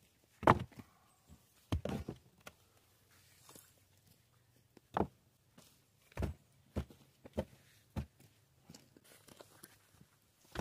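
Rocks being placed by hand into a gate post hole: a series of dull knocks as stone strikes stone, about eight in all. The loudest comes about half a second in.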